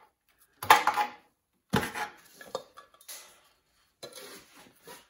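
Pressed-steel valve cover on a Volkswagen Beetle's air-cooled flat-four being pried off with a screwdriver: a series of about five sharp metallic clanks and rattles as the cover is levered loose and pulled away, the loudest near the start.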